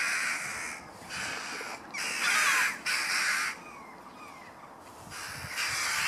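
Crows giving a run of about five harsh caws, each under a second, with short gaps between: the alarm calls of birds mobbing an intruder near their young.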